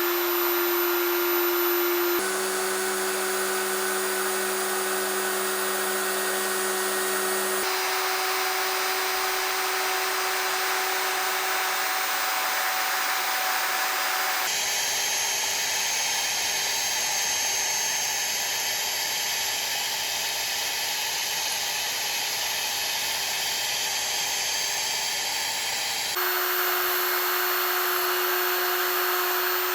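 CNC router spindle running steadily while an end mill cuts, a steady whine over cutting hiss. The sound changes abruptly about two, eight, fourteen and twenty-six seconds in, as one milling clip gives way to the next.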